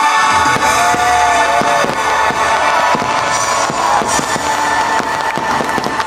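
Aerial fireworks bursting in quick succession, many sharp bangs over a low rumble, mixed with loud show music holding long notes.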